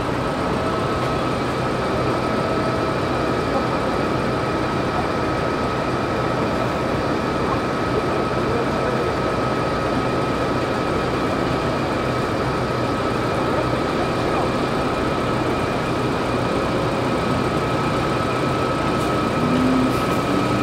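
Rear-mounted engine of a Hyundai Super Aero City natural-gas (CNG) city bus idling while stopped, heard close to the rear grille: a steady engine rumble with a constant high-pitched whine over it.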